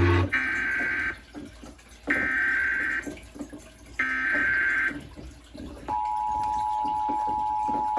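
Emergency Alert System tones for a Required Monthly Test: three short bursts of SAME header data, each under a second and about two seconds apart, then about six seconds in the steady two-tone attention signal starts and holds.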